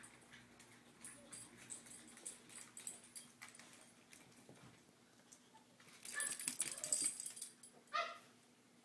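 A dog gives a short whimpering cry near the end, after a second or so of noisy scuffling and a few faint scattered clicks.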